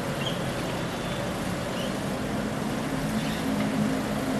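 Tow truck engine running steadily over road noise, its low hum growing a little louder near the end.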